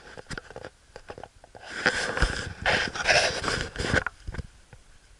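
Footsteps crunching on the forest floor, then about two seconds of loud rustling and brushing as someone pushes through ferns, starting about two seconds in and stopping abruptly near the four-second mark.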